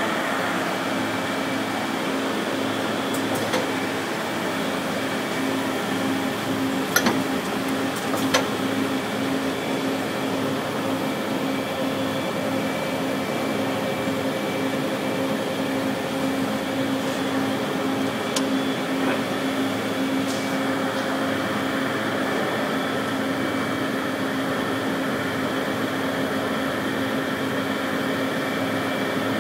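Steady electrical and mechanical hum of a powered-up Amada Vipros 255 CNC turret punch press standing at idle, with a few short sharp clicks in the first part.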